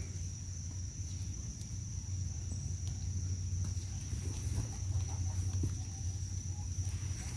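Steady high-pitched drone of insects over a low steady rumble, with chickens faintly clucking nearby.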